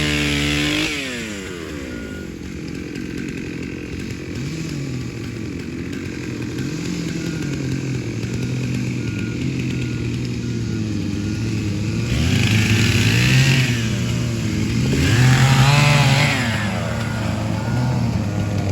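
Two-stroke chainsaw coming off a cut and dropping in pitch, running low and uneven, then revved up and back down twice near the end.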